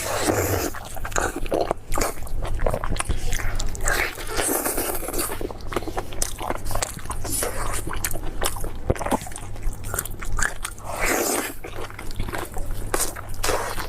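Close-miked mukbang eating: biting and chewing offal balls, with many sharp wet clicks and smacking mouth sounds.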